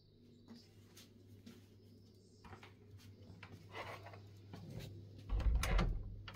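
A few light knocks and rubbing sounds in a small room over a low steady hum, then a louder thump about five seconds in.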